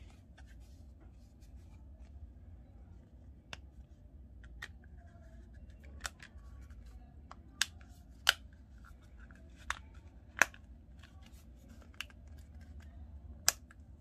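Sharp, separate clicks and snaps of small hard objects being handled, about nine of them spaced irregularly from a few seconds in, over a faint steady low hum.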